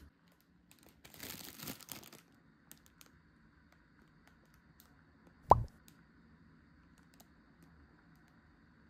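Plastic packaging crinkling for about a second, then, about five seconds in, one loud short pop that drops quickly in pitch, with a few faint clicks around it.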